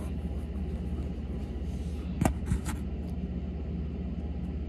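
Steady low hum, with two short clicks close together about two seconds in.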